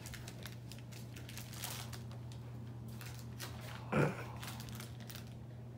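Faint crinkling and rustling of a bouquet's clear plastic wrapping as it is handled, over a steady low hum, with one brief louder sound about four seconds in.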